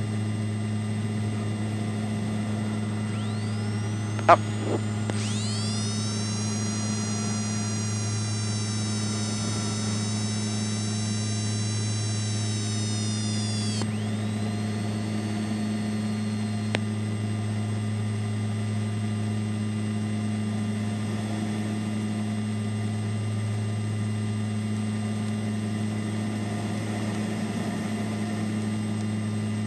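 Inside the cockpit of a climbing MU-2 Marquise, recorded through the intercom: the steady low drone of the Garrett turboprops and propellers with electrical hum and hiss. A sharp click about four seconds in, then a whine of several rising tones climbs, holds for about nine seconds and cuts off suddenly as the landing gear comes up.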